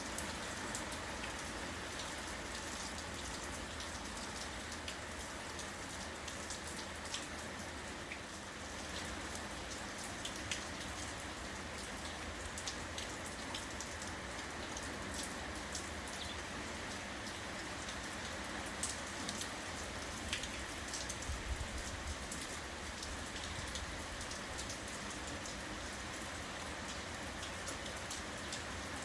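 Steady rain falling, with many individual raindrops tapping close by.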